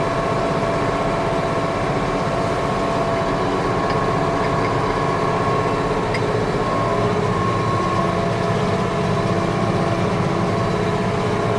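Case IH 7120 Magnum tractor's diesel engine running steadily under load while driving a New Holland BR780 round baler picking up hay, with a steady mechanical hum and whine.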